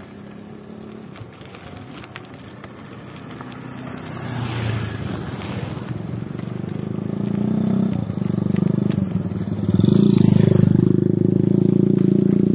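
Motorcycle engines approaching and passing close by, growing louder from about four seconds in and loudest near the end, with a brief drop in pitch about ten seconds in.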